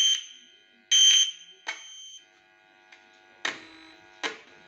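Short, high-pitched buzzing beeps, followed by two sharp clicks over a faint steady tone. This is typical of a TV speaker sounding as a probe is touched to points around the audio IC to trace the audio signal.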